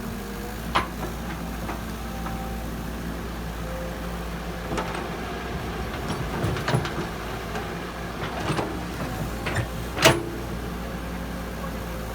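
Heavy construction machinery, a diesel excavator loading a dump truck, running steadily with a series of scattered knocks and clanks. The loudest knock comes about ten seconds in.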